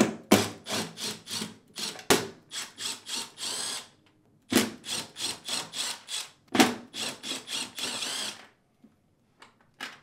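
Cordless Milwaukee Fuel power driver with a T15 Torx bit backing screws out of a dishwasher door's metal panel, run in quick short bursts about three a second. It pauses briefly about four seconds in and stops about a second and a half before the end.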